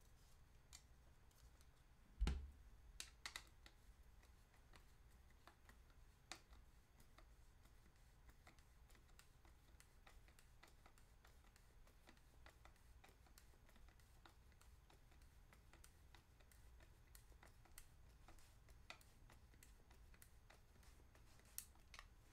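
Faint, scattered clicks and taps of a hand screwdriver driving a screw into a 3D-printed plastic part, with one knock about two seconds in.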